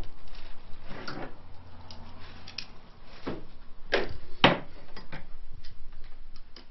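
A series of irregular knocks and clunks of hard objects being handled, the loudest two close together about four seconds in, with a faint low hum for about a second and a half near the start.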